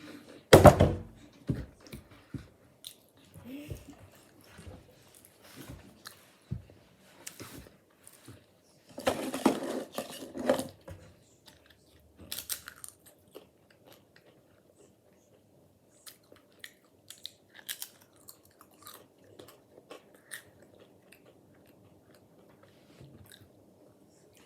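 A person eating potato chips: irregular crunching bites and chewing. The loudest crunch comes just after the start, and a dense run of crunching about nine to ten seconds in, with lighter scattered crunches later.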